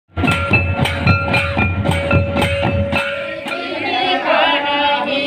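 Large bowl-shaped drums beaten with curved sticks in a steady, even rhythm of about four strokes a second over a held tone. The drumming stops about three seconds in, and a group of women starts singing.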